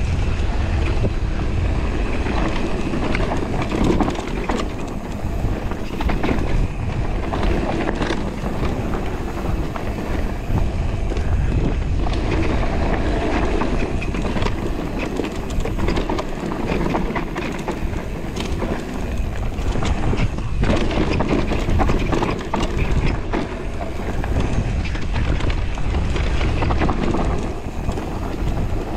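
Electric mountain bike riding fast along a dirt forest singletrack: the tyres roll over packed earth and dry leaf litter in a steady rumble, and the bike clatters and rattles over the bumps and roots with many quick knocks.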